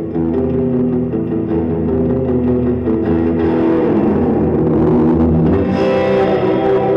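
Band music led by guitar: sustained guitar chords over bass, played loud.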